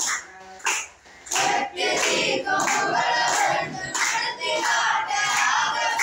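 A group of boys singing together in unison, with hand clapping, breaking off briefly just after the start and picking up again about a second and a half in.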